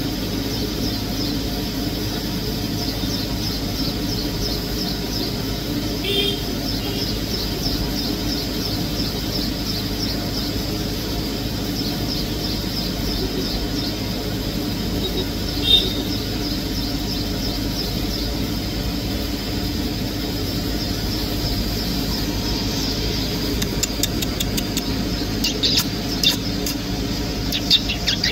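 Outdoor garden ambience: a steady high-pitched pulsing trill over a low hum, with two short chirps about six and sixteen seconds in and a few sharp clicks near the end.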